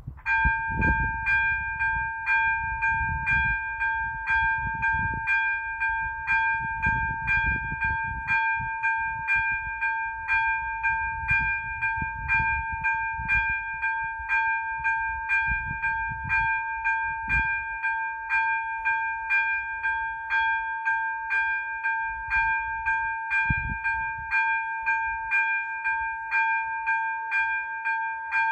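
A ZV-02 electronic level-crossing warning bell switches on a fraction of a second in and rings on in a fast, even, clanging beat. It is the crossing's warning that a train is approaching, and it sounds together with the red flashing lights.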